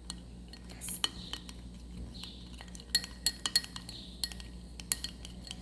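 A utensil stirring a thick glue mixture for slime in a small pot, with irregular clicks and taps against the container, bunched together about three seconds in and again near the end.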